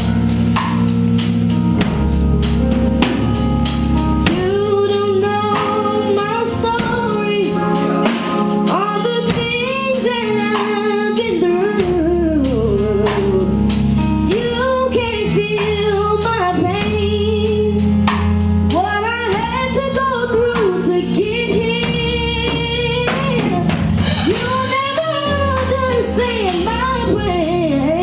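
A song with a lead singing voice, wavering on held notes, over a drum kit and bass.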